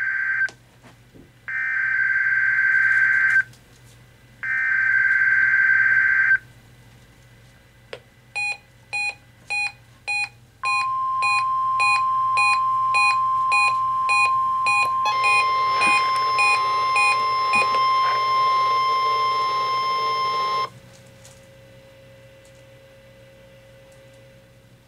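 Emergency Alert System weekly test: three bursts of warbling digital data tone (the SAME header), then a run of quick beeps, then the steady National Weather Service 1050 Hz alert tone for about ten seconds. A harsh buzzing layer joins the alert tone about halfway through, and the beeps stop shortly before the tone cuts off abruptly, leaving a faint low tone.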